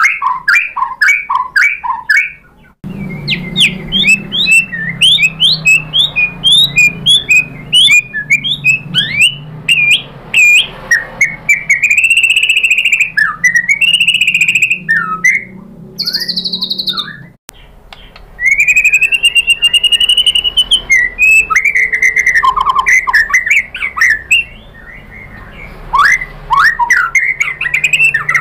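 White-rumped shama (murai batu) in full, agitated song: a rapid run of loud whistles, quick up-and-down pitch sweeps, trills and chattering notes. A low background hum sits under the middle part and drops out abruptly about two-thirds of the way through.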